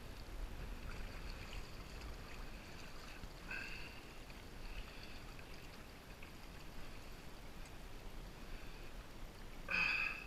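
Faint water lapping around a float tube, with a low wind rumble on the microphone. A brief high-pitched sound, the loudest thing here, comes near the end.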